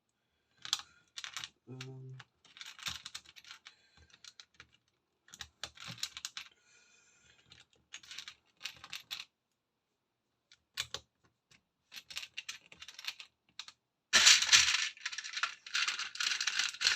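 Plastic LEGO pieces clicking and clattering as they are handled and fitted together, in short scattered bursts, with a louder, denser stretch of rattling near the end.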